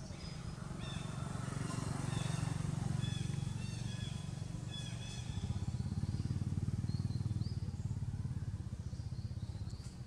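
A motorcycle engine running nearby, its low hum swelling twice, with short high chirps over it.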